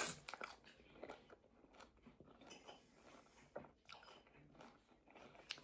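Close-up chewing and biting of a meal, with small irregular crunches and clicks of food being eaten.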